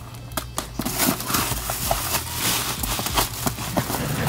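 A cardboard box and plastic packaging being torn open and handled. A few sharp clicks and scrapes give way, about a second in, to continuous crinkling and rustling.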